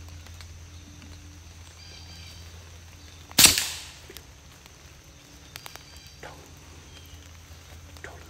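A single shot from a PCP air rifle about three and a half seconds in: a sharp crack that dies away over about half a second. A few faint clicks follow a couple of seconds later.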